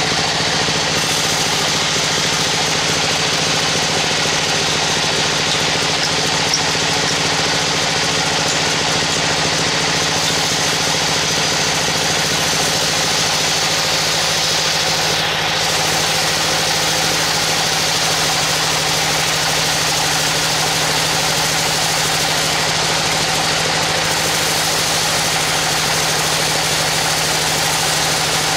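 Band sawmill running steadily as its blade rips lengthwise through a teak log: a constant machine hum under a steady hiss of sawing.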